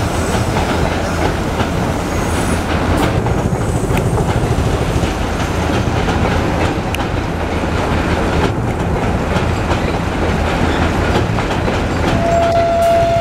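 ICF passenger coaches rolling past over a steel girder bridge, a loud steady rumble with wheels clattering over the rail joints. Near the end, a train horn starts a steady single-note blast.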